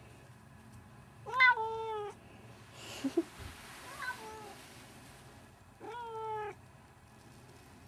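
A domestic cat meowing three times: a loud meow about a second in, a faint short one near the middle and another toward the end, with a brief rustle between.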